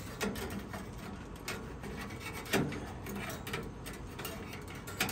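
A metal poker rod scraping and clicking inside the fire chamber of a Big Horn wood pellet pizza oven as it stirs the ashes. Irregular scraping with a few sharper clicks; the loudest comes about two and a half seconds in.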